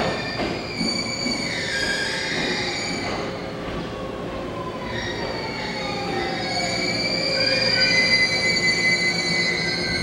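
A JR East 209 series 1000-number electric commuter train braking to a stop at a platform: high brake squeal over the running noise, with a whine falling steadily in pitch as it slows. The squeal grows loudest near the end as the train comes to rest.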